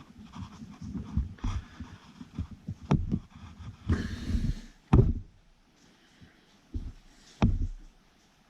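Irregular knocks, thumps and scrapes of hydraulic cylinder piston parts being handled while a seal is worked into place, with a sharp knock about five seconds in and smaller ones near three and seven and a half seconds.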